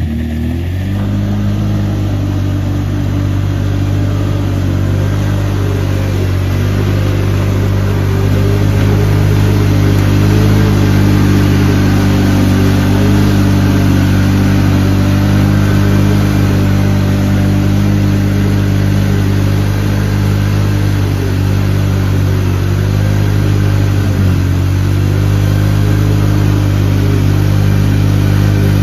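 Vehicle engine running at steady revs, with a brief dip in pitch about 24 seconds in.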